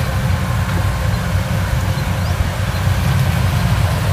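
Steady low rumble with a faint engine hum from rice combine harvesters working a field in the distance.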